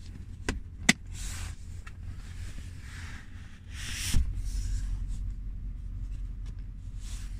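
Low steady hum of a car cabin, with two sharp clicks about half a second apart near the start. Irregular rustling and brushing handling noises follow, with a dull thump about halfway through.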